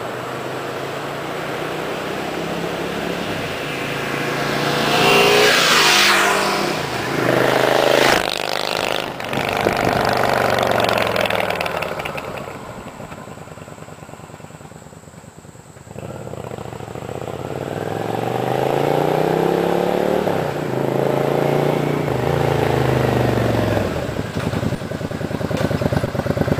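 Motorcycles riding past on a road, a Yamaha V-Star 650 V-twin on modified stock exhaust pipes among them, the engine note dropping in pitch as they go by. After a quieter lull midway another engine comes up again, its pitch rising and then falling.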